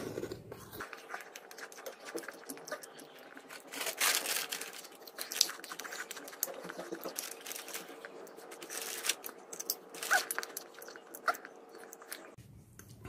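Someone biting and chewing puffed BBQ-flavoured corn snacks close to the microphone: irregular crisp crunches, a few louder ones about four, five and ten seconds in.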